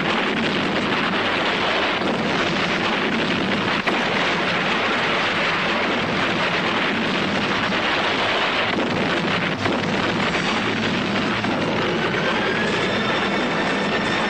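Film sound effects of a large explosion and fire: a dense, steady roar with a couple of sharper cracks. Music comes in faintly near the end.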